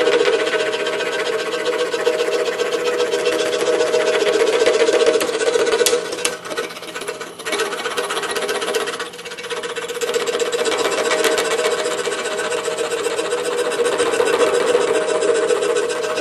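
DeWalt scroll saw running with its blade sawing steadily through a small piece of thin wood. The sound dips briefly twice, about six and nine seconds in.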